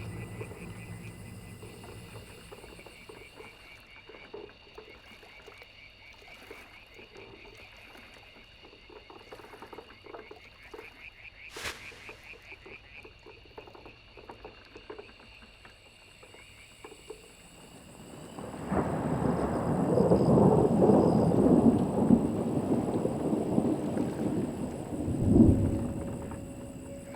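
A faint, steady, high-pitched pulsing chorus with a single sharp click partway through. Then a loud rumble builds about two-thirds of the way in, peaks sharply near the end and fades.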